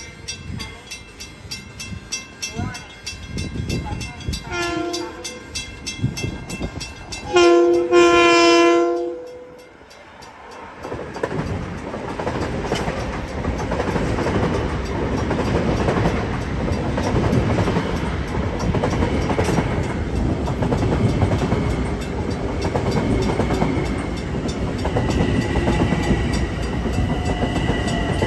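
Long Island Rail Road train sounding its horn, a short blast about five seconds in and a long, loud blast a couple of seconds later, then the train passing with a steady rumble and clatter of wheels on rail.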